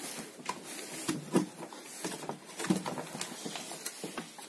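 Scattered knocks and clatter as the open metal chassis of a homemade battery starter-charger is lifted and turned over by hand, with its parts and heavy cables shifting.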